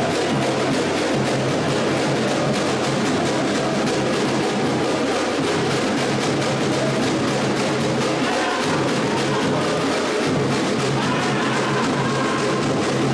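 Music with drums and percussion, at a steady level.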